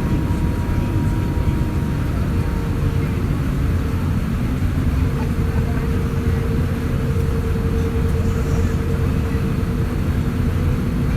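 Cabin noise inside an Airbus A350-1000 taxiing onto its stand, its Rolls-Royce Trent XWB-97 engines at idle: a steady low rumble with a steady hum. A fainter higher tone fades out about two seconds in.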